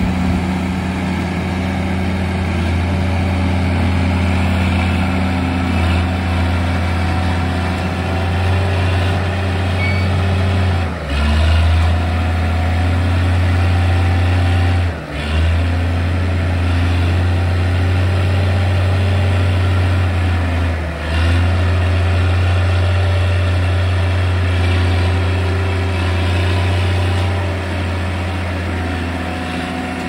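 Diesel engine of a Clark Michigan 35B wheel loader running steadily under load while it pushes and lifts a bucket of grass silage up the pit, with three brief dips in level.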